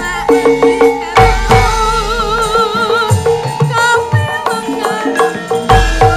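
Javanese gamelan music with a sinden singing a wavering, vibrato line over steady metallophone tones and repeated drum strokes.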